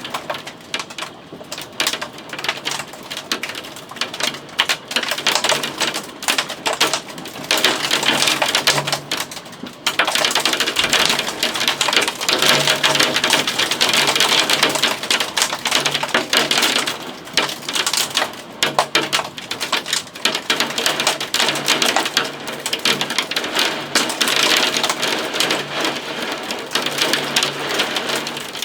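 Heavy thunderstorm rain pattering and splashing on hard surfaces as a dense clatter of drops, getting heavier about a third of the way through.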